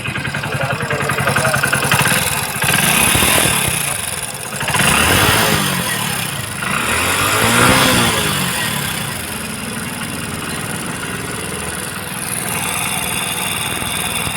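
Hero Splendor BS6 single-cylinder motorcycle engine running, blipped up and back down three times, then settling to a steady idle about nine seconds in. It carries a loud valve-train noise, which the mechanic puts down to loose valve clearance that needs a tappet adjustment.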